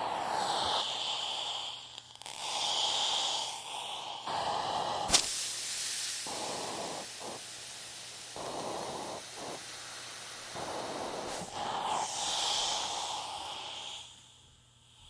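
Hot iron and water sizzling, with steam hissing in several swelling surges that fade out near the end. A single sharp click comes about five seconds in.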